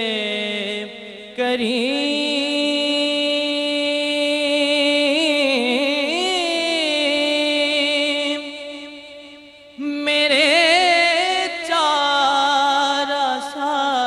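A young man singing a naat solo into a microphone, drawing out long held notes with wavering ornaments in slow phrases. He breaks off briefly about a second in and again around nine seconds.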